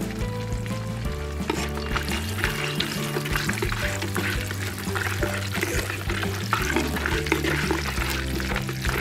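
Whole spices (cinnamon, clove and cardamom) sizzling and crackling in hot oil in a clay pot, stirred with a wooden spoon from about two seconds in. Background music with a steady bass line plays under it.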